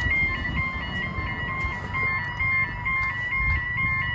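Bridge warning alarm sounding: an electronic two-tone signal pulsing about twice a second over a low rumble. It warns road traffic that the bascule bridge is about to close its barriers and lift.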